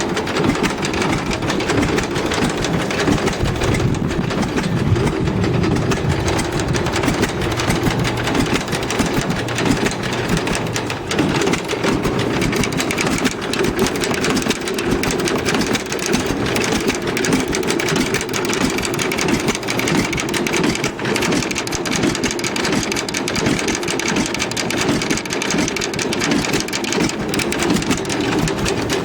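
1948 John Deere A tractor's two-cylinder engine running steadily with an even, rapid pulsing.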